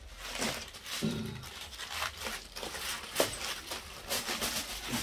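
Aluminium foil being pulled open and crumpled by hand, irregular crinkling and crackling, with one sharper crackle about three seconds in.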